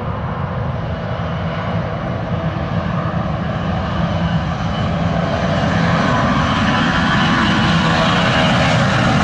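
Delta Boeing 757-200's twin jet engines at takeoff power during its takeoff roll on a wet runway. The engine noise is steady and grows gradually louder as the airliner approaches, with a higher whine coming in over the last few seconds.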